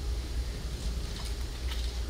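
Steady low hum with faint room noise and a few faint soft clicks about a second in and near the end; no speech.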